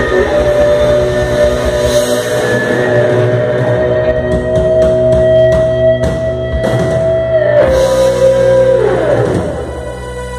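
Live rock band playing during a sound check: electric guitars, bass and keyboard hold sustained chords, with a run of sharp drum or cymbal hits in the middle. The held notes step down about three-quarters of the way through and slide downward near the end.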